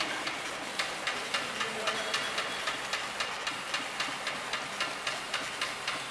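Fully automatic horizontal labeling machine running: a steady mechanical noise with regular clicks about three times a second.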